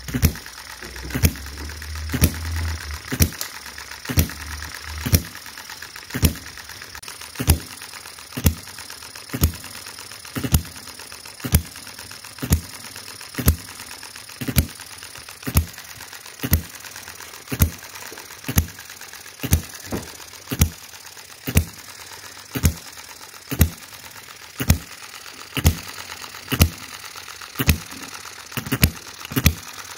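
Miniature single-cylinder petrol engine running slowly, a sharp pop about once a second over a steady mechanical whir as the flywheels turn.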